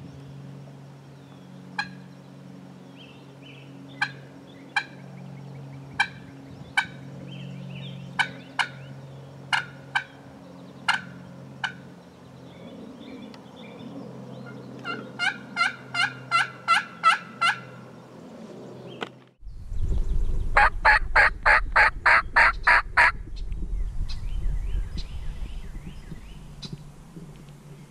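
Turkey calling: single short yelps and clucks spaced about a second apart, then a quicker run of yelps. After a sudden break comes a louder, faster series of about ten notes, with wind noise under it.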